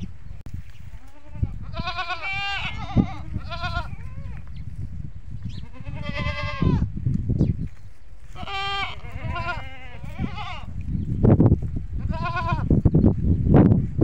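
Desi goats bleating again and again: about eight wavering, quavering bleats, each under a second long, with gaps between them, over a low rumble.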